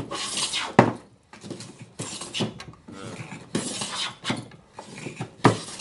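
Wooden hand plane shaving a board: about four rasping strokes, each lasting well under a second, some ending in a sharp knock.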